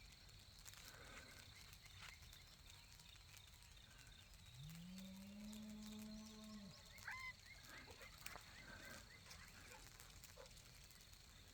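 Cow mooing faintly once, a single long low call of about two seconds that rises then holds, in near silence. A few faint bird chirps follow.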